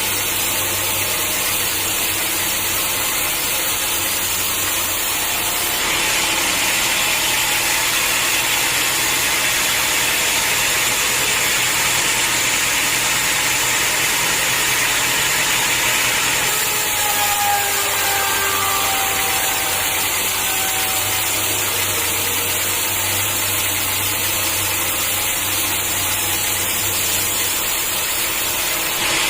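Sawmill machinery running steadily while a saw cuts hard acacia logs into beams. The sound grows brighter and a little louder from about six to sixteen seconds in.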